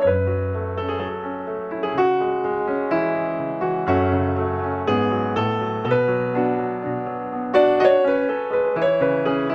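Background piano music: a gentle, even melody of sustained notes over low held bass notes.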